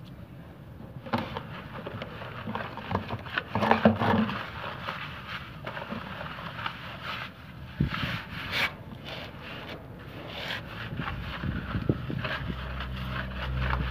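Hands rubbing and scrubbing the wet, long hair of an animal hide on a concrete floor, irregular rustling and scraping with small knocks, as the matted hair is worked loose.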